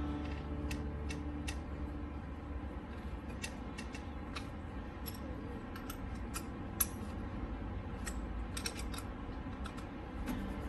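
Irregular small metallic clicks and taps of hand tools and brake parts being handled while fitting new brake pads and their retaining pin into a motorcycle's front brake caliper, over a steady low hum.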